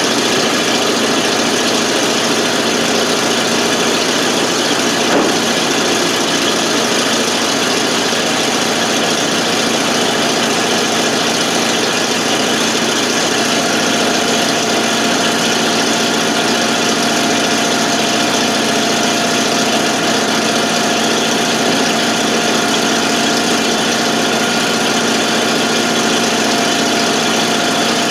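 The carbureted engine of a 1988 FMC 6000 truck is idling steadily and running on its own after a hard start. About halfway through, a steady higher whine joins the engine sound.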